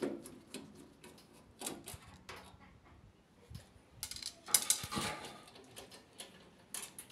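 Scattered clicks and metallic clatter from a screwdriver and the sheet-metal frame and parts of a washer-dryer cabinet being worked on and handled, with a denser, louder rattle about four to five seconds in.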